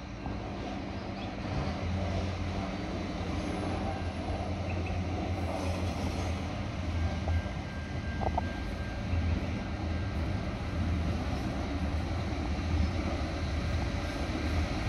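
Repowered Adelaide Metro 3000-class diesel railcars 3028 and 3006 approaching on a curve. Their engines give a low, steady hum that grows louder over the first couple of seconds as the train draws near, then holds.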